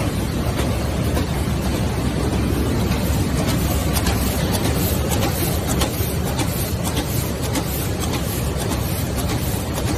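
A kraft paper roll sheeter cutter running: a steady mechanical noise with faint ticks scattered through it.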